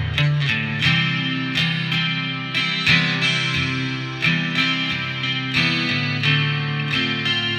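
Martin steel-string acoustic guitar playing chords in a steady rhythm, the chord changing every second or so.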